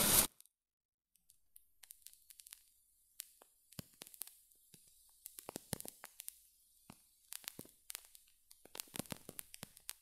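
The last instant of a wooden match's ignition flare, then the lit match burning with faint, irregular crackles and ticks.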